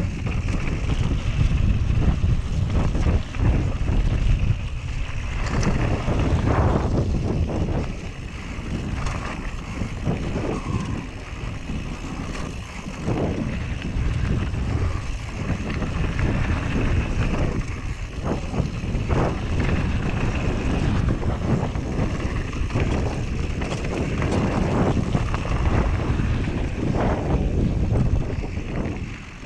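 Mountain-bike ride-along sound from a Whyte G-170 enduro bike descending loose dirt and gravel singletrack. The tyres crunch over stones, the bike rattles and knocks over bumps, and wind buffets the action camera's microphone. It gets quieter just before the end.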